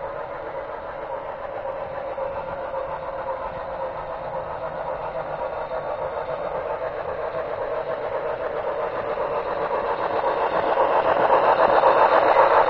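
HO scale model freight train running on the track, a steady rolling rattle of wheels and motor that grows louder as the train approaches. It is loudest near the end, as the cars pass close by.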